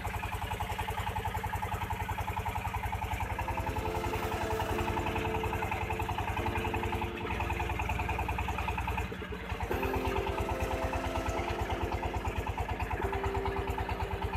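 Boat engine running steadily, a fast, even thudding pulse of several beats a second, with held tones stepping in pitch over it.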